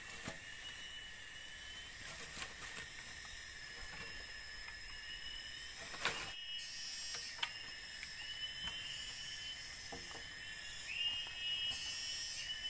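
Steady high drone of forest insects with short repeated chirps, broken by a few sharp knocks from bamboo poles being handled.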